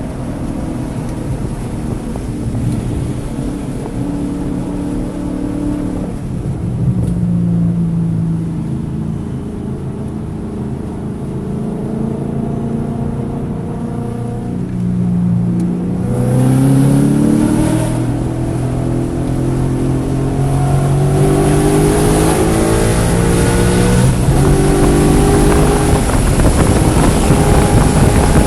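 Race-track car engine heard from on board, misfiring in cylinders 1, 3 and 4. It holds a fairly steady pitch through the first half, then accelerates from a little over halfway in, rising in pitch through several climbing runs, with wind noise building toward the end.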